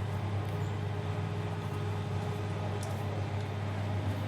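Steady low electrical hum with a faint hiss, the background of the workshop, with a faint tick near the end.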